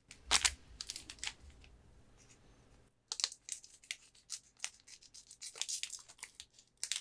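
Foil Pokémon card booster packs being torn open and crinkled: a burst of tearing about half a second in, then a run of quick, crackly rips and crinkles from about three seconds on.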